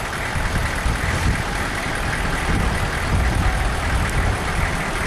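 Steady low rumble of a vehicle's engine with road noise, heard from inside the vehicle.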